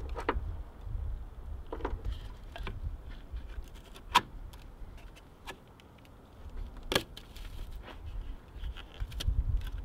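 Scattered small plastic clicks and clatter from hands fitting the ABS module's wiring connector and cover in the engine bay, with two sharper clicks about four and seven seconds in, over a steady low rumble.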